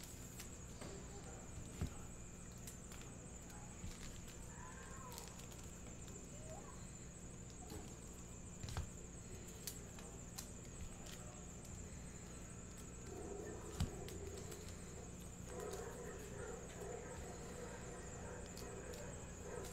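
Trading cards being handled by hand at a table: faint clicks and three sharper knocks, about 2, 9 and 14 seconds in, over a steady high electronic whine and a low hum.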